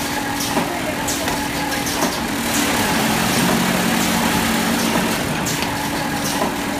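Machinery of an automatic popcorn cup filling and sealing line running: a steady hum under a constant hiss, with short sharp hisses and clicks at irregular moments, and a deeper hum swelling for a couple of seconds mid-way.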